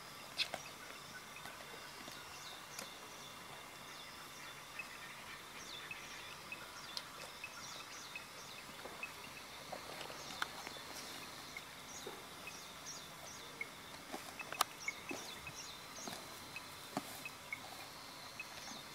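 Wild bush ambience: many short, high chirps scattered throughout, a few sharp clicks, and a faint steady high hum underneath.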